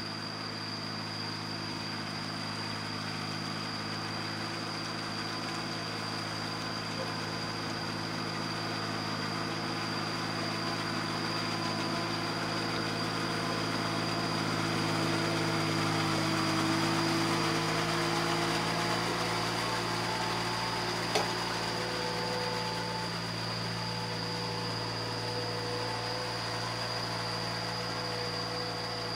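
Small farm tractor diesel engine running steadily under load as the cage-wheeled tractor levels a flooded rice paddy, growing louder toward the middle. About two-thirds of the way through, the engine note changes, and a single sharp click follows soon after.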